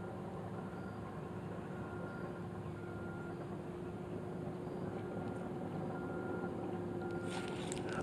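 A distant motor running with a steady hum that slowly grows louder, with faint short high beeps repeating under a second apart.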